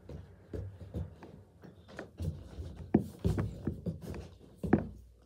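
Rubber balloon being tapped up by hand and caught, giving a series of irregular dull thumps and rustles, with two louder thumps about three seconds in and near the end.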